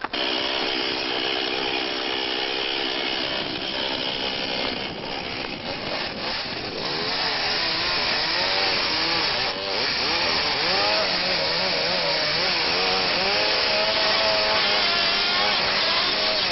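A chainsaw running, starting abruptly and working under load, its engine note rising and falling over and over as the revs change.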